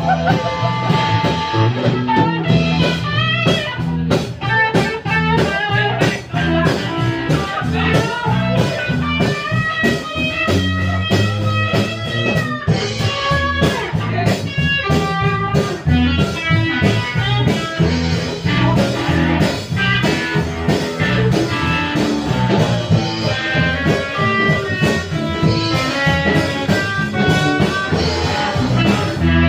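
Live blues band playing an instrumental passage: electric guitar lines with bent and held notes over bass guitar and drum kit.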